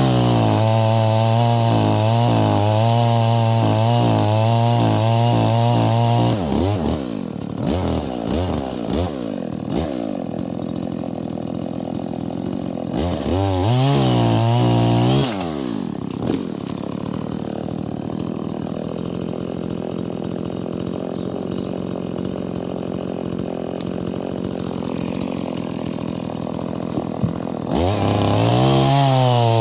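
Two-stroke chainsaw cutting through a fallen tree at full throttle, the engine note wavering under load. It drops back to a lower running speed after about six seconds, revs up again briefly midway, and runs high again near the end.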